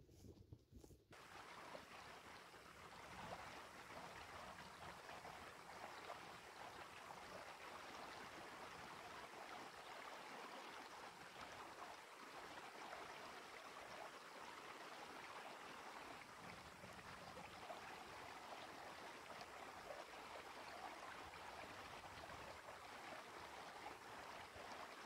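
Faint running water, a stream flowing steadily, starting abruptly about a second in.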